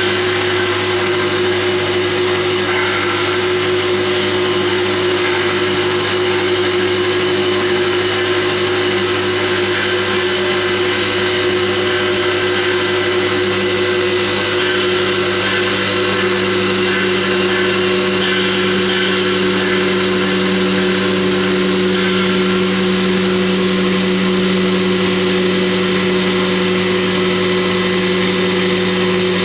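CNC stone polishing machine running: a steady motor hum with a few held tones over a grinding hiss, the lower tone growing louder about two-thirds of the way through.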